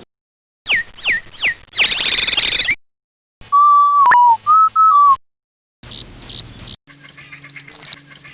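A sequence of short bird-call sound effects cut apart by silent gaps: three falling whistled notes and a fast trill, then a loud, steady whistled tone that dips and rises once, then rapid high-pitched chirping.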